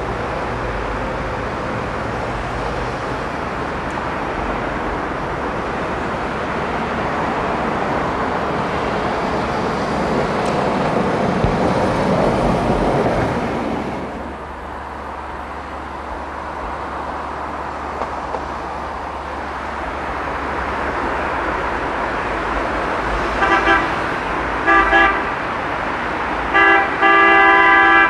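Street traffic running steadily, then a vehicle horn sounds near the end: a few short honks followed by a longer blast.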